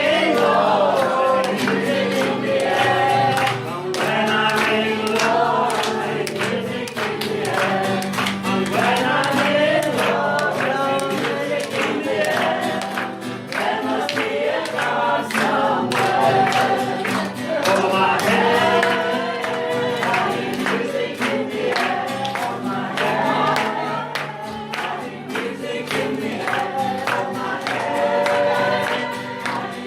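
A group of voices singing together over steady low accompaniment, with a regular beat running through.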